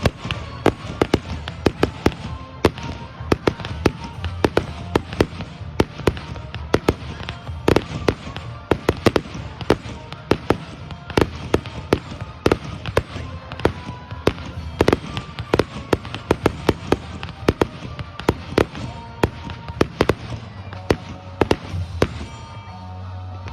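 Fireworks display: a rapid barrage of bangs and crackling pops, several a second, easing off near the end.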